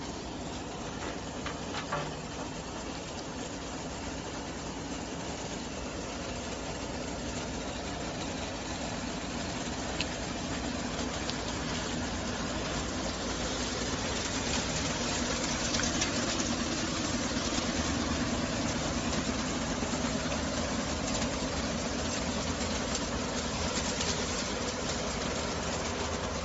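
A compact enclosed-cab street sweeper running: a steady machine hum under the hiss and scrape of its rotating side brushes on the pavement, slowly growing louder over the first half.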